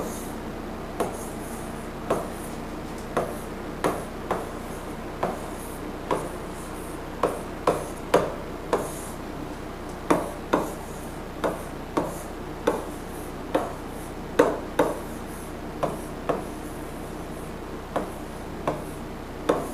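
Pen strokes on a writing board as words are handwritten: short irregular taps, about one or two a second, with faint scratching between them.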